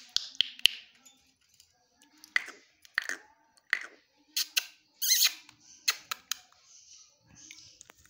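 Caged Indian ringneck parakeet making a string of short, sharp chirps and clicks, about a dozen at uneven intervals, one about five seconds in with a wavering pitch.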